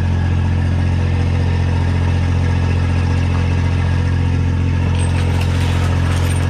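Mini excavator's diesel engine idling steadily with a low, even hum. Some light clattering comes in near the end.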